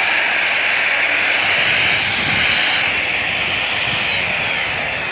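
High-speed electric rotary polisher, around 6,000 RPM, running a buffing wheel against aluminum Airstream letters in the cut-and-color stage: a steady high whine with hiss, its pitch sagging slightly near the end.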